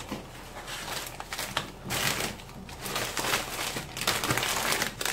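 Crinkly plastic snack and cracker packets rustling as they are handled and laid out, on and off.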